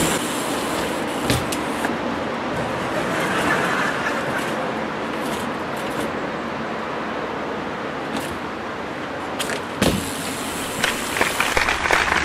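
BMX bike riding on a concrete skatepark ramp: a steady rushing noise, broken by a few sharp knocks of the bike against the ramp, about a second in and again near the end.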